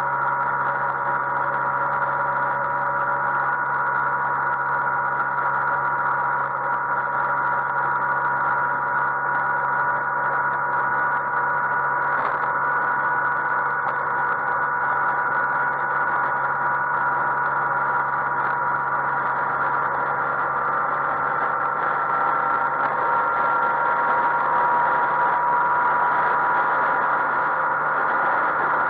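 Yamaha XMAX 125 scooter's single-cylinder engine running at a steady cruising pitch at highway speed, mixed with steady wind and road noise.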